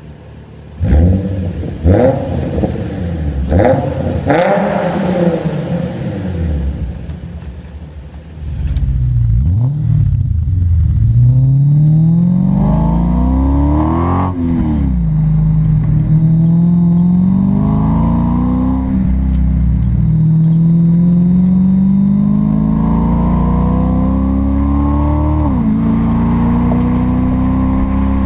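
Nissan 350Z V6 with resonator delete and custom dual exhaust revved sharply several times while parked, each rev rising and falling quickly. Then a Lexus IS F's 5.0-litre V8 with Novel headers and ISS DES exhaust accelerating hard on the move, its pitch climbing through the gears with three sharp drops at the upshifts.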